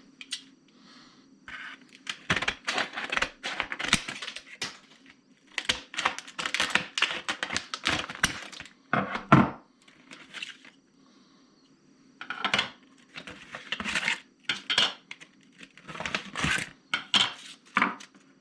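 A set of new diamond hones being unpacked and handled: three bouts of irregular tearing, clicking and clatter, separated by short pauses.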